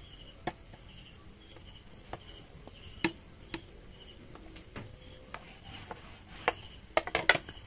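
A wooden ruler set down, slid and shifted on a wooden tabletop while fabric is handled: a few sharp clicks and knocks over a quiet background, the loudest about three seconds in and a quick cluster near the end.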